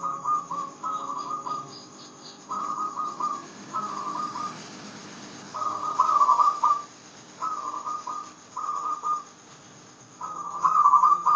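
Zebra dove (perkutut) singing its rhythmic cooing song: short trilling coo phrases, often in pairs, repeated every second or so with short gaps.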